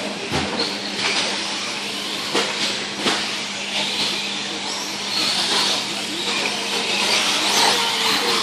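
Radio-controlled 4WD short-course trucks racing on a dirt track: electric motors whining and tyres hissing over the dirt, swelling as the trucks pass, with several sharp knocks from landings and hits.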